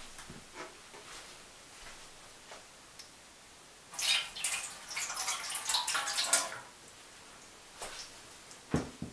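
Water poured from a jug into the plastic base tray of a Zelmer electric grill, splashing for about two and a half seconds. A dull knock comes near the end.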